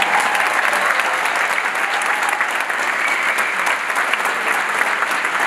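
Large audience applauding: a dense, steady clapping of many hands.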